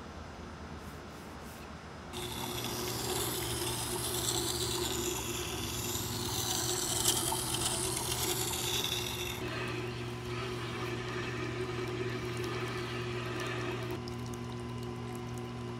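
Wet sharpening grinder running with a steady motor hum while a lathe gouge held in a jig is ground on its water-cooled stone. The grinding hiss starts about two seconds in and eases off about halfway through, while the motor keeps running.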